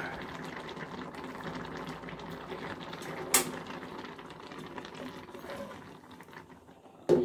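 Thick carrot halwa (semai) bubbling in a steel pot on a gas stove: a dense, fast crackle of small popping bubbles. There is a sharp click about halfway through and a louder knock near the end.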